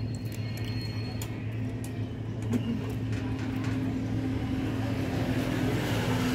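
Steady low hum of a vehicle engine running nearby, with a second steady tone joining about halfway through and the sound growing louder toward the end. A few light clicks and crinkles early on come from a cat eating out of a plastic bag.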